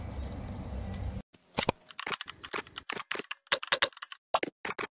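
Computer keyboard typing: an irregular run of sharp keystroke clicks starting about a second in. Before that there is a steady outdoor background noise that cuts off suddenly.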